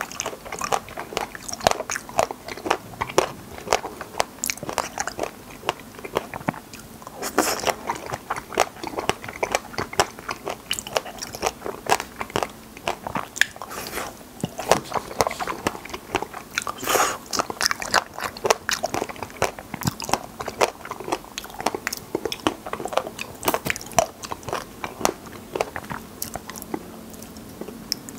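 Close-miked eating of raspberries bitten off a skewer: wet biting and chewing, with a dense run of small mouth clicks and a few louder bites about a third and two thirds of the way through.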